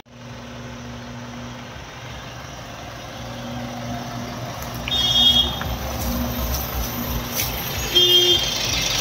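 Eicher Pro 2114XP truck's four-cylinder diesel engine running with a steady low hum that grows louder about midway. Two short, high-pitched beeps sound over it, about five and eight seconds in.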